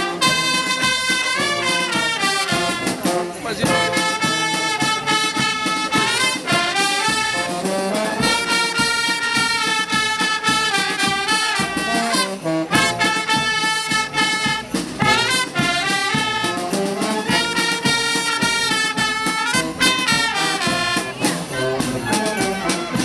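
Youth brass band playing a tune, trumpets and other brass horns sounding a melody in harmony.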